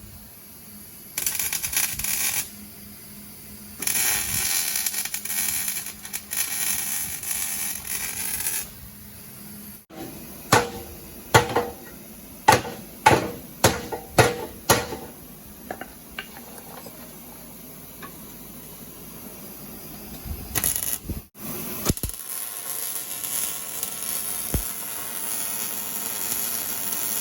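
Metalworking on a car frame: two bursts of harsh, hissing noise, then a run of about ten sharp strikes over some five seconds, and a steadier noise near the end.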